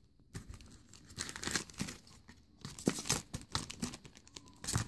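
Small plastic Ziploc bag crinkling and rustling in irregular bursts as it is handled and pulled open.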